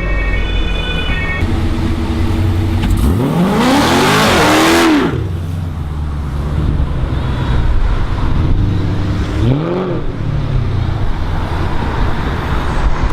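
Dodge Challenger SRT8's HEMI V8 idling, then revved hard once, climbing for about two seconds and dropping back. It is given a second, shorter rev later on.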